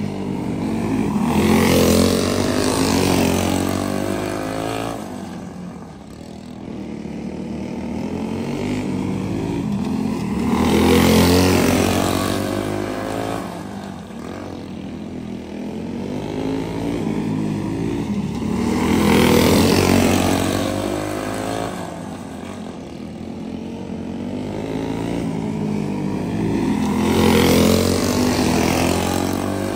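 A racing go-kart engine running laps on a short dirt oval. It comes past four times, about every eight seconds, each time swelling to its loudest with the pitch bending as it passes, then fading to a distant drone on the far side of the track.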